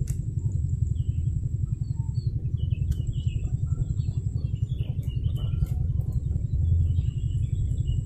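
Outdoor ambience: a steady low rumble with a fast flutter, birds chirping faintly over it, a thin high steady whine, and a few soft clicks.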